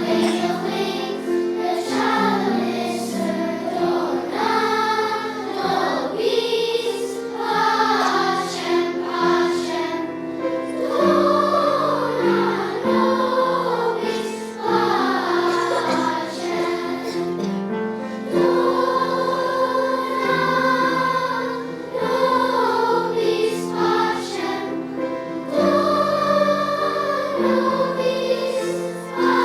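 Children's choir singing a Christmas song with instrumental accompaniment. Sustained sung phrases move over held low chords.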